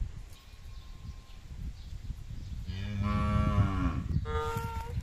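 A cow moos once, a long low call of about a second and a half starting just past the middle, followed near the end by a shorter, higher-pitched call.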